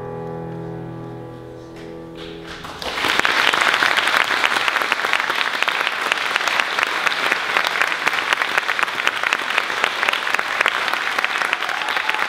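A choir's final chord held and fading, cut off after about three seconds, followed at once by loud audience applause that keeps going.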